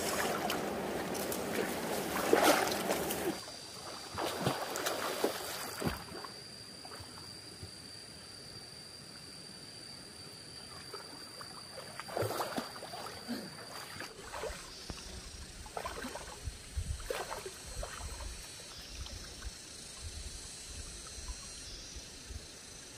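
Water in a stream splashing and sloshing. Loud for the first three seconds or so, then quieter, with scattered short splashes and a steady high thin tone running on for several seconds.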